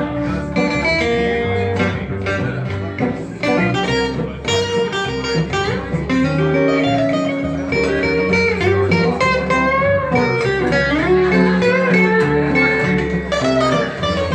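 Live blues band playing an instrumental break, with acoustic guitar, electric guitar and upright double bass and no singing.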